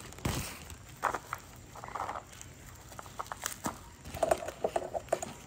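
Hands handling and squeezing a small parcel in plastic wrapping, giving scattered taps and crinkles with a few short squeaks.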